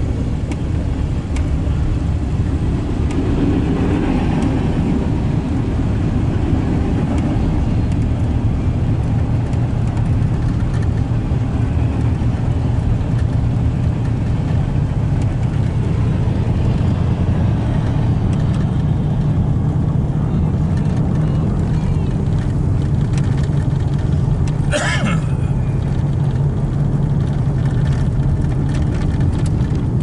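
Steady low road and engine rumble inside a moving car's cabin. A brief high-pitched squeak comes about 25 seconds in.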